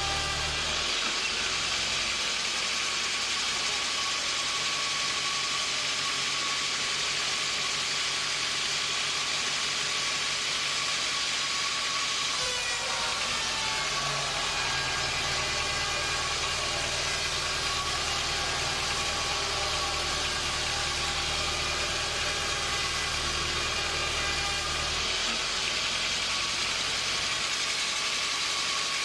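Sawmill machinery running steadily: a continuous mechanical drone and hiss with a steady whine. A deeper low rumble fades after about two seconds, comes back about halfway through, and drops away again near the end.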